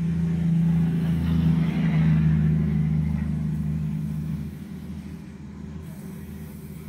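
A steady low droning hum that drops away suddenly about four and a half seconds in, leaving it much quieter.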